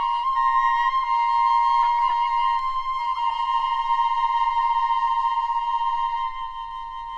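Flute choir holding one long high note, with a few brief downward flicks in pitch from other flutes around the middle, growing softer near the end.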